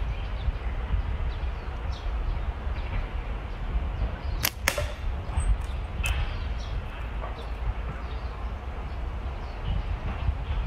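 Slingshot shots: sharp snapping cracks, a quick pair about four and a half seconds in and another about six seconds in, over a steady low rumble of wind on the microphone.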